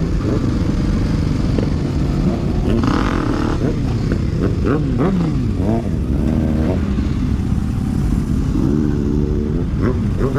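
Several motorcycle engines running together at low speed, with their notes repeatedly rising and falling as riders blip the throttles over a steady low rumble.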